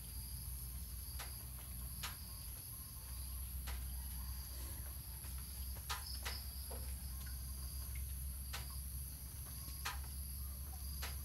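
Steady high-pitched drone of insects such as crickets, over a low hum, with irregular sharp clicks about once a second, likely a puppy's claws tapping on a tiled floor.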